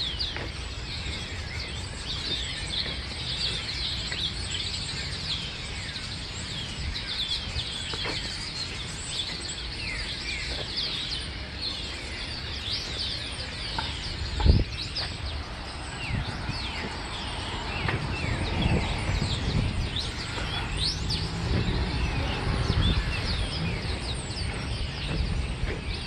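A large flock of small birds calling together in a dense, continuous chorus of short chirps. A single thump comes about halfway through, and a low rumble rises under the chorus in the second half.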